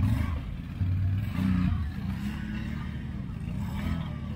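Quad bike (ATV) engine running under throttle, revving up in two surges in the first two seconds, then running on steadily.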